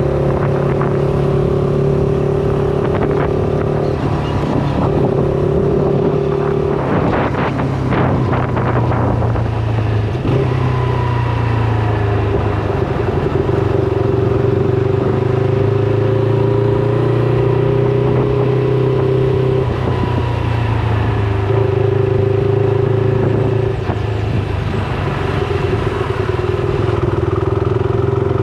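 Shineray SBM 250S motorcycle engine running while being ridden at a steady pace, its note dipping and rising a little several times. A short patch of clattering noise about seven seconds in.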